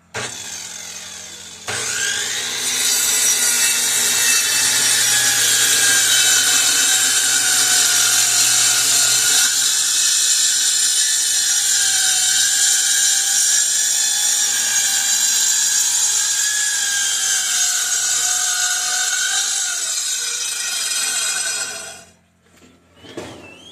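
A power tool running under load for about twenty seconds, its motor tone wavering and sagging a little, over a loud high hiss; it steps up in level about two seconds in and stops shortly before the end.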